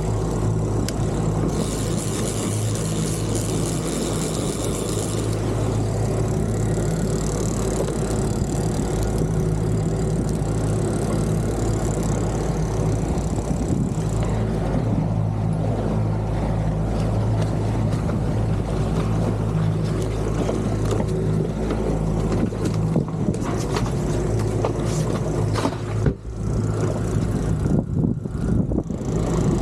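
Boat engine running steadily, a low even hum under a constant hiss of wind and water.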